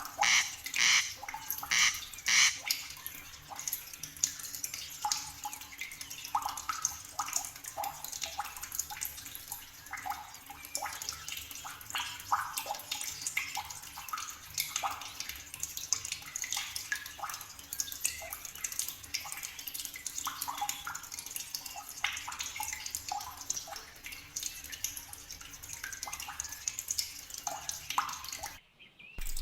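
Forest soundscape of many short chirping animal calls, busiest in the first few seconds with a loud run of repeated calls about two a second, then scattered chirps. The sound cuts out briefly near the end.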